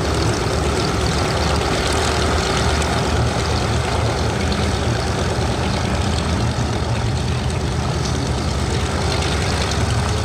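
The Consolidated PBY-5A Catalina's two Pratt & Whitney R-1830-92 fourteen-cylinder twin-row radial engines run steadily at low taxiing power, with a heavy low rumble and propeller noise.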